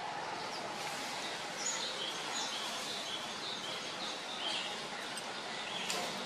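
Outdoor ambience: a steady hiss with short, high bird chirps scattered throughout.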